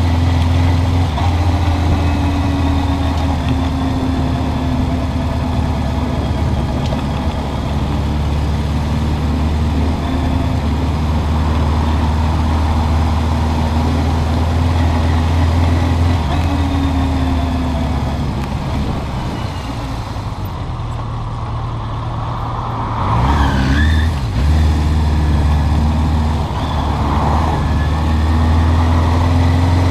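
Suzuki GS650G Katana's air-cooled inline-four engine running at low road speed, its pitch rising and falling several times as the rider opens and closes the throttle.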